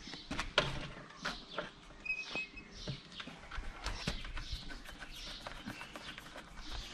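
Small birds chirping, with scattered sharp clicks and knocks, the loudest about half a second and just over a second in.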